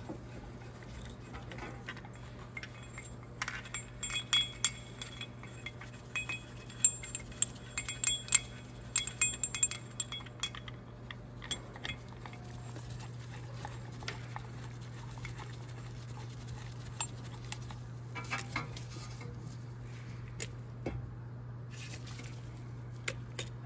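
Metal clinks and sharp clicks of a screw-type brake caliper piston compressor tool being fitted and adjusted against a front brake caliper. The clicks come thick in the first half and only a few fall later, over a steady low hum.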